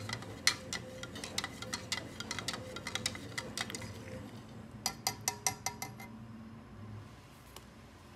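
Metal spoon stirring coffee and oil in a clear plastic blender cup, clinking against the sides in quick irregular ticks, then a quick run of sharper, ringing clinks about five seconds in.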